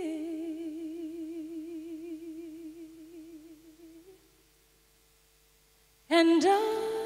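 A solo female voice in a recorded song holds one long note with vibrato, fading away about four seconds in. After a pause of near silence the song comes back in suddenly and loudly about six seconds in, a voice sliding into a note over accompaniment.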